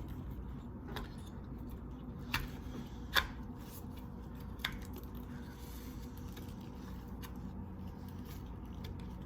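RC car parts being worked by hand while trying to fit a drivetrain part into the chassis: a few scattered sharp clicks and knocks, the loudest about three seconds in, over a faint steady hum.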